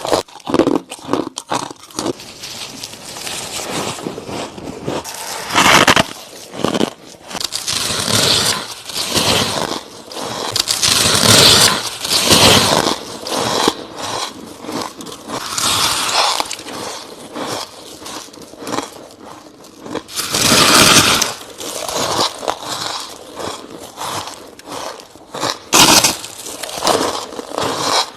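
Close-up chewing and crunching of soft, crushed freezer frost, with bites and rapid crackling chews; the loudest bites come about every five seconds.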